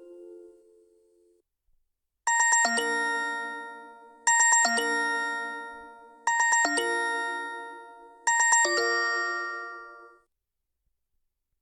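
OnePlus 7T stock ringtone: a bell-like chime figure, a quick run of struck notes that rings on and fades, played four times about two seconds apart. The last notes of the previous ringtone die away first.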